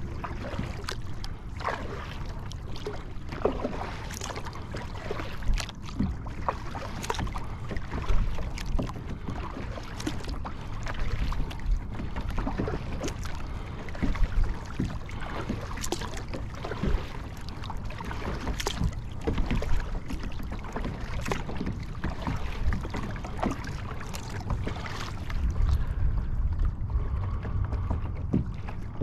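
Lake water splashing and sloshing against a Field & Stream Eagle Talon 12 sit-on-top kayak, in irregular small splashes every second or so, over a steady low rumble of wind on the microphone that grows near the end.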